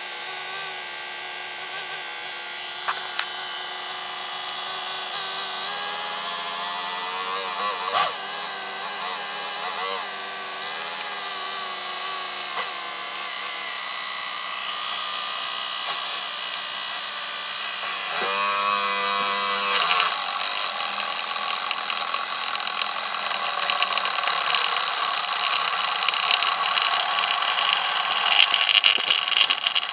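Small brushed DC motor running overvolted, a high whine that climbs in pitch a few seconds in. From about two-thirds of the way through it turns louder and harsher with crackling, as the overheating motor pours out smoke.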